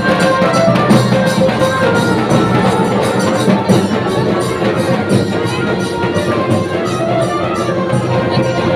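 Loud music with a steady, even drum beat and a melody.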